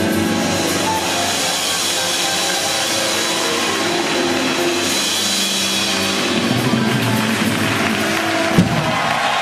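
A jazz big band playing live, full brass section with piano, upright bass and drums, closing the tune on a sharp accented hit near the end.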